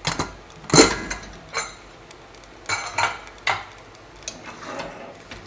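A stainless steel pressure cooker being opened: a steel ladle clinks against the lid and the lid knocks against the pot. There are half a dozen separate metallic clanks, the loudest about a second in.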